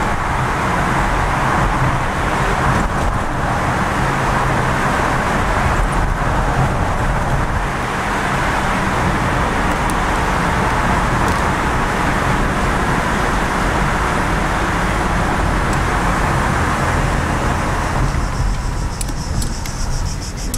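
Car engine and road noise heard from inside the cabin while driving through a narrow rock tunnel: a steady rushing drone over a low rumble. The rushing fades and eases off near the end as the car leaves the tunnel.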